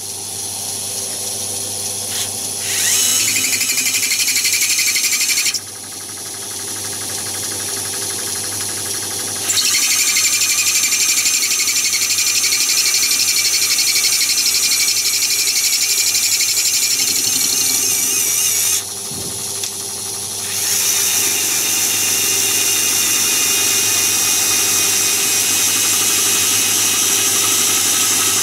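Myford ML7 lathe running while an INGCO CSDL10403 cordless screwdriver turns the cross-slide as a power feed to machine plastic. A steady hum lies under a high whine that stops and starts again several times, louder from about three, ten and twenty-one seconds in.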